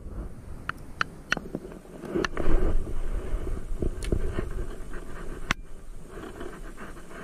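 Spinning rod and reel being handled, giving scattered clicks and knocks over a steady low rumble, with a louder rush of noise about two and a half seconds in.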